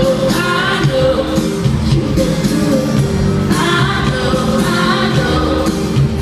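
A live band plays with a female lead singer: a sung melody over upright bass, drums and guitar, heard through a phone from within an arena audience.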